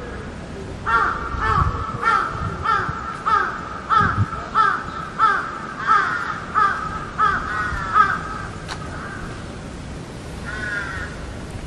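Bird calls: a rapid run of short calls, each falling in pitch, for about seven seconds, then a pause and one more call near the end.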